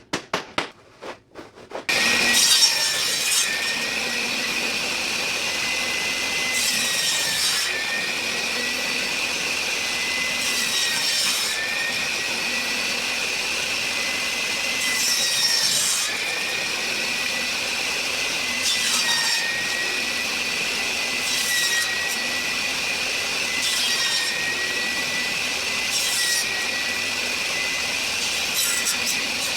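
Power saw cutting a circle out of wood. It starts up about two seconds in after a few clicks, then runs with a steady high whine. The whine sags briefly every few seconds, each time with a burst of cutting noise as the blade bites into the wood.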